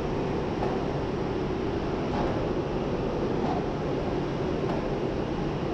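ChS7 twin-section electric locomotive rolling slowly past as it arrives with a passenger train: a steady rumble with a few faint clicks.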